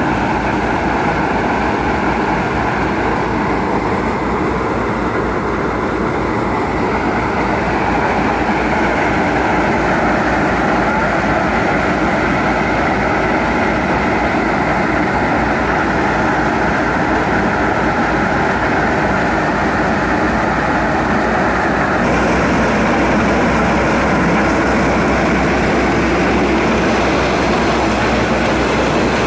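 Tractor-driven maize sheller running steadily under load as corn cobs are fed into its hopper, over the Belarus MTZ-50 tractor's diesel engine driving it. It makes a loud, continuous mechanical din, with a slight change in tone about two-thirds of the way through.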